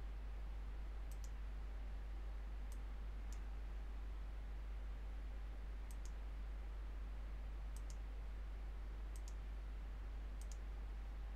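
Computer mouse clicks: about seven faint, sharp clicks, mostly in quick press-and-release pairs, spread over several seconds. A steady low hum runs underneath.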